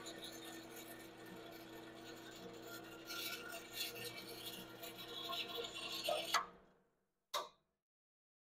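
Benchtop drill press running with a steady hum as a twist drill bit feeds into aluminum flat bar, a scratchy cutting noise building from about three seconds in. The sound cuts off suddenly a little after six seconds, followed by a single short knock.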